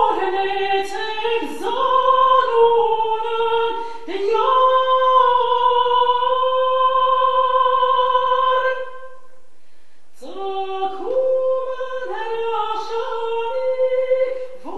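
A woman's solo voice singing a slow, unaccompanied church chant with long held notes. She breaks off about nine seconds in and starts again a second later.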